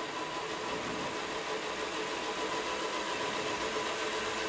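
HO-scale DCC model locomotive's electric motor and gearing running as it is throttled up, a steady hum with faint steady whining tones. The locomotive's sound decoder is switched off, so only the mechanism is heard.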